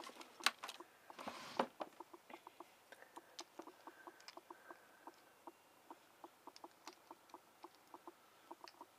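A few louder clicks and short rustles in the first two seconds, then fast, even light ticking at about four ticks a second.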